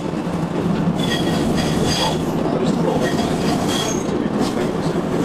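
Bombardier CR4000 tram running along curving track, heard from the driver's cab: a steady rumble of wheels on rail, with high-pitched wheel squeal on the curve that comes and goes between about one and four seconds in.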